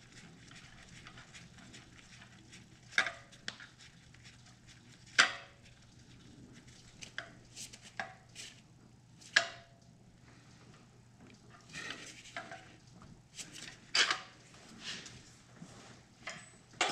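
Metal hand tools clinking and knocking against the engine as a spark plug is fitted with a ratchet and socket: a string of separate sharp clinks, loudest about five seconds in and again about fourteen seconds in.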